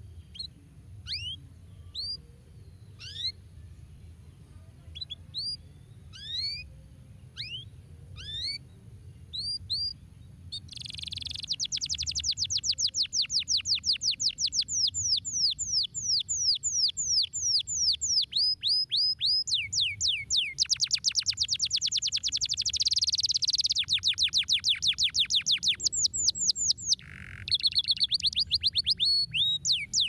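Yellow domestic canary singing. It gives spaced single chirps for about ten seconds, then breaks into a fast, much louder rolling trill of rapid repeated down-slurred notes that changes phrase several times.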